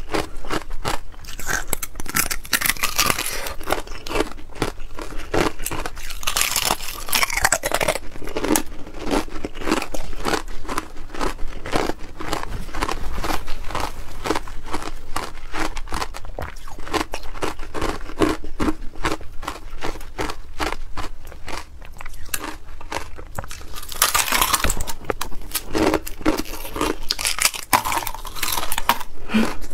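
Thin sheets of ice being bitten and chewed close to the microphone: a dense run of quick, sharp crunches and cracks, louder and hissier about six seconds in and again near the end.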